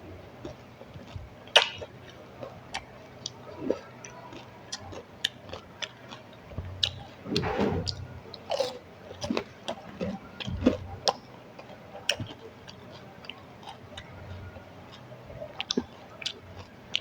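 Someone chewing pani puri (fuchka) close to the microphone: crisp shells crunching, with irregular wet mouth clicks and a longer, louder burst of chewing about seven seconds in.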